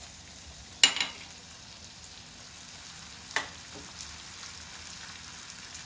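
Gond (edible gum) frying in hot desi ghee in a kadhai, a steady faint sizzle. Two sharp knocks of the stirring spoon against the pan cut through it, the louder about a second in and a smaller one a little past the middle.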